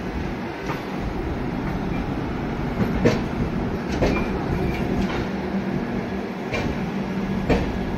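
Indian Railways LHB passenger coaches rolling past a platform as the train departs. The wheels clack sharply over rail joints in pairs about a second apart, over a steady rumble and low hum.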